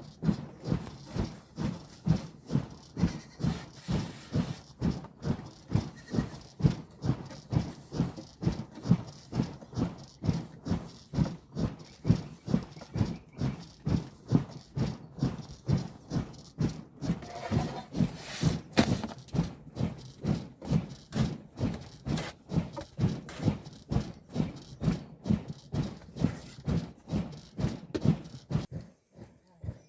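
Steady, regular low thumping, about two to three beats a second, stopping shortly before the end.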